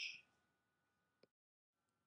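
Near silence: the narrator's last word trails off at the start, then only a faint steady hum and one tiny click about a second in.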